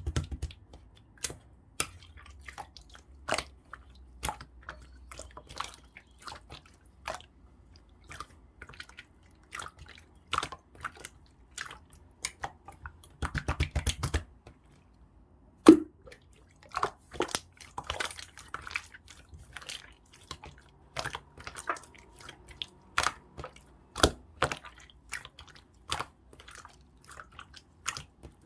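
Clear slime being worked by hand, giving irregular sharp clicks and wet pops, with a quick rapid run of them about thirteen seconds in and one louder pop shortly after.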